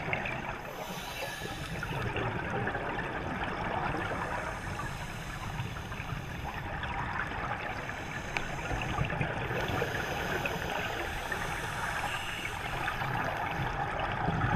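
Scuba regulator exhaust bubbles gurgling and rushing underwater as divers breathe, a steady uneven wash that grows a little louder near the end.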